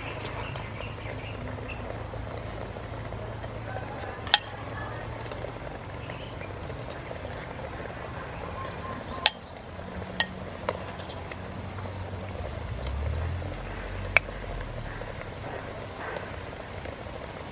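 Metal spoon scooping soup from an aluminium pot into a ceramic bowl, with liquid pouring and several sharp clinks of the spoon against the pot and bowl.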